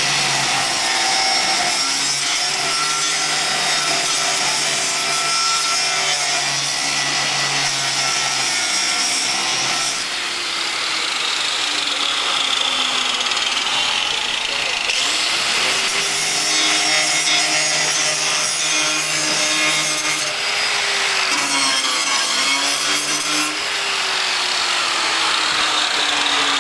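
A handheld grinder grinding steel, its motor running in a steady whine under a harsh grinding noise. In the second half the motor's pitch sags and recovers several times as the wheel is pressed into the metal.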